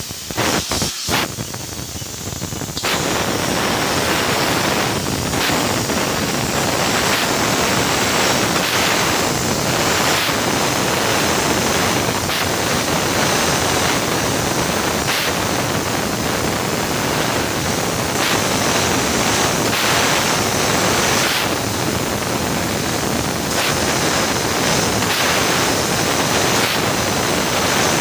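Fiber laser tube cutting machine cutting a metal tube: the steady hiss of the cutting head's gas jet, with sparking. It starts as a thinner, higher hiss with a couple of sharp clicks, then from about three seconds in becomes a louder, fuller steady noise.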